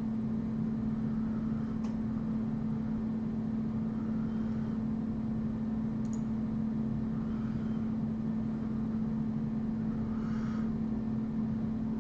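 A steady machine hum with one constant low tone, unchanging throughout, and a faint click about six seconds in.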